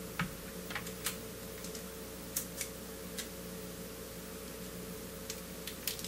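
Scattered light clicks and ticks of small objects being handled, irregularly spaced, over a steady low hum.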